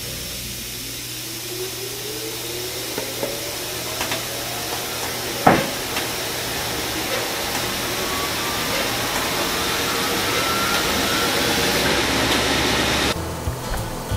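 SCM Sandya 5 wide belt sander starting up: a rising whine as the machine spins up over a steady rush of noise that grows louder, with one sharp clack about five seconds in. The sound cuts off suddenly near the end.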